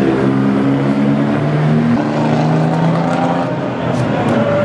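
Engines of pre-war vintage sports cars running as the cars drive past one after another. Their engine notes hold steady and step in pitch a couple of times.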